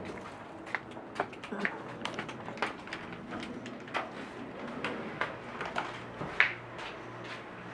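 Footsteps walking, a string of irregular short steps about two a second.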